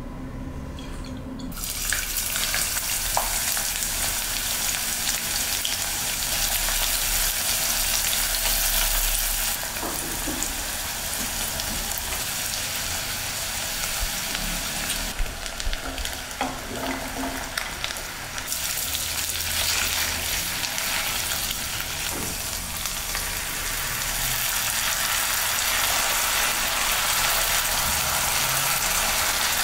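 Chopped onion and vegetables sizzling in hot oil in a pot, the sizzle starting suddenly about a second and a half in. A spatula stirs and scrapes the pan now and then.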